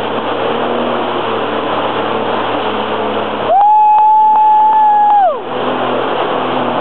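Jet ski engine running at speed with a steady rush of wind and water. About halfway through, a loud high tone is held for nearly two seconds and then drops away.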